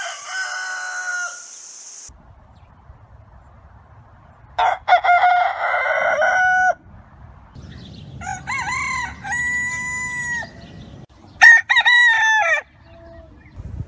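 Roosters crowing: one crow ends about a second in, over a high hiss that stops soon after, and three more crows follow, the last the loudest.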